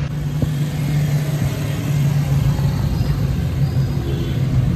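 Steady low drone of a rickshaw's motor with road rumble, heard from the passenger seat as it rides along.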